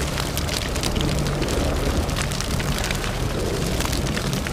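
Wind buffeting the camera microphone: a steady low rumble with scattered crackles.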